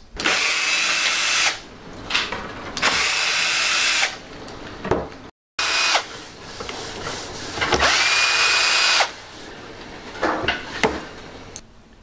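Ryobi 12-volt cordless drill driver backing screws out of kitchen cabinet door hardware, running in three bursts, each whine rising in pitch as the motor spins up and the third the longest. A few light knocks follow near the end.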